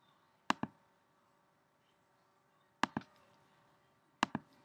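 Computer mouse clicking: three sharp double clicks, each a press and release, spaced a second or two apart, as random.org is brought up on screen.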